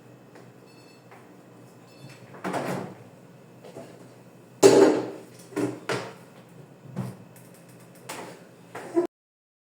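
A run of household knocks and clatters, about six of them, the loudest about halfway through. The sound cuts off abruptly shortly before the end.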